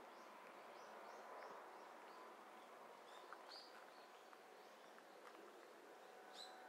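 Quiet countryside ambience: faint, short bird chirps repeat throughout, with a brighter double chirp near the end, over a faint steady high hum.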